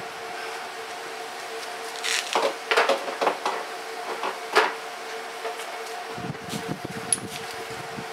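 Light clicks and knocks of hand tools on an air compressor's pump, a cluster of them from about two to five seconds in, over a steady hum. A low rumble comes near the end.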